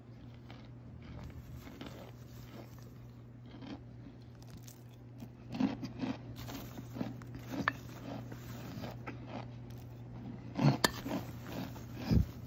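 Chunks of Argo cornstarch, baked hard in the oven, crunching and crumbling as they are pressed and scooped, with a spoon digging in near the end. Soft crackles at first, then a run of sharper crunches, the loudest two about three-quarters through and just before the end.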